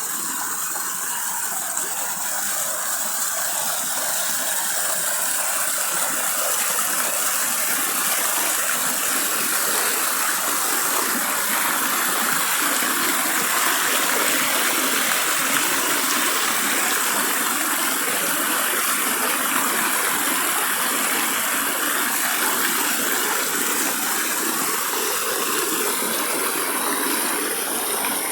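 Waterfall water rushing and splashing: a steady, full rush of noise that grows a little louder over the first several seconds, then holds.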